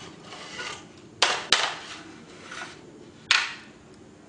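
Black plastic frame of a Cooler Master Notpal C2 laptop cooling pad clattering as it is turned over and set down by hand: two sharp clacks in quick succession about a second in, a third near the end, with handling rustle between.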